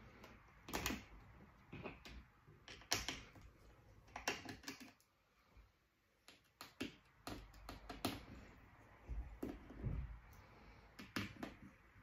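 Irregular light clicks and taps of hands handling the parts and chassis of an opened laptop, with a short quieter pause partway through.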